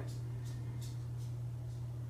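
A steady low hum with a few faint, soft handling noises.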